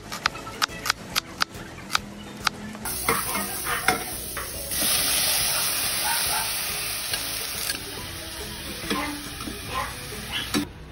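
A knife chopping a red onion on a cutting board, about three chops a second. About three seconds in, this gives way to sliced sponge gourd (patola) sizzling in hot oil in a stainless steel pot as a spatula stirs it. The sizzle grows louder about five seconds in, with occasional clinks of the spatula against the pot.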